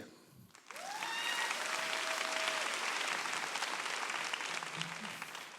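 Audience applauding, starting about a second in and fading toward the end.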